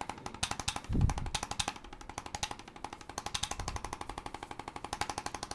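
Electric chiropractic adjusting instrument tapping rapidly against a patient's back, an even stream of about a dozen clicks a second. A brief low bump about a second in.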